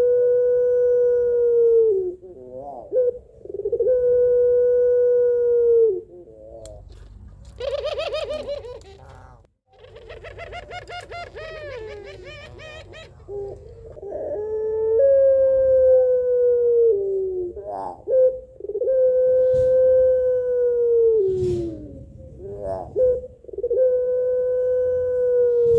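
A female puter pelung (a long-cooing variety of the ringneck/Barbary dove) gives long drawn-out coos, calling for a male. There are five coos of about two seconds each, each held level and then dropping at the end. In the middle come two quieter, rougher calls that roll rapidly.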